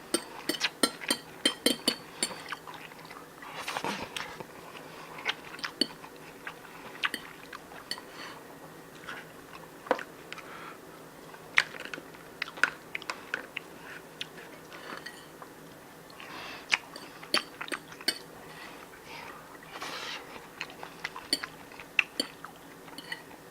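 Someone eating a meal: irregular sharp clinks of cutlery against dishes, with chewing.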